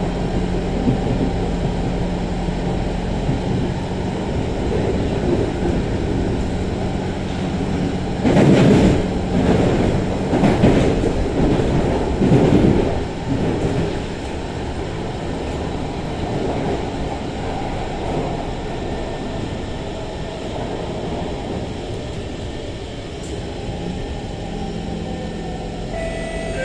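Running noise heard inside an SMRT C151 metro car on the move: a steady rumble of wheels on rail. It grows louder and rougher for several seconds about a third of the way in. A low hum comes in again near the end.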